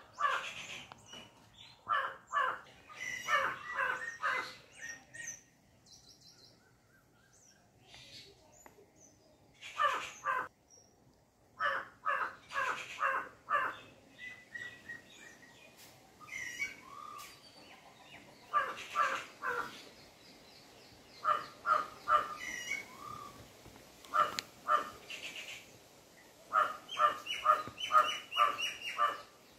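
Birds calling: repeated runs of quick calls every few seconds, with fainter higher chirps in between.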